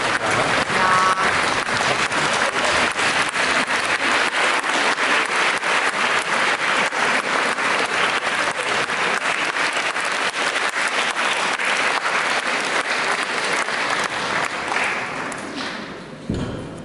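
Audience applauding, dense and steady, thinning and dying away about fifteen seconds in, with a single thump near the end.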